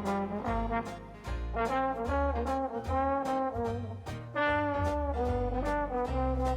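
Background music led by brass, trombone and trumpet, over a bass line and a regular beat.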